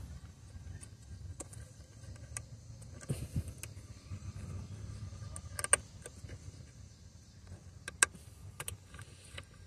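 Scattered plastic clicks and small rattles as the electrical connector on a throttle body is worked loose by hand by its locking tab, with one sharper click about halfway through and another near the end. A low steady rumble sits underneath.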